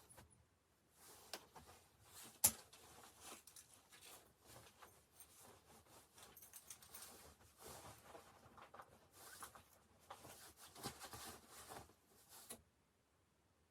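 Faint, irregular rustling and scraping with small clicks, like objects being handled at close range, and one sharp click about two and a half seconds in. It stops about a second before the end.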